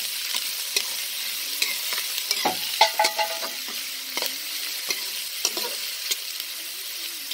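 Diced onion and green bell pepper sizzling in hot oil in a metal pot, with a metal spoon stirring and clinking against the pot. The loudest scrape, with a brief ring, comes about three seconds in.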